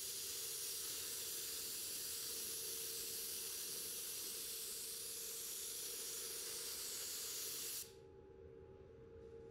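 Gravity-feed automotive spray gun laying clear coat, its compressed air giving a steady hiss that cuts off suddenly near the end as the trigger is released.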